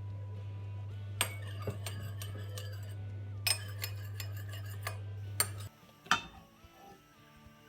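Spoon clinking against a small dish while stirring soy sauce and rice vinegar into a dipping sauce: two runs of quick taps, then two single clinks. A steady low hum cuts off about three-quarters of the way through.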